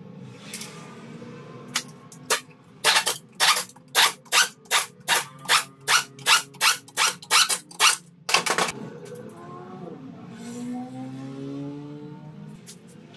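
Pneumatic wrench run in a quick series of about fourteen short bursts, roughly two to three a second, then one longer burst, as the oil pan's flange bolts are driven into the engine block.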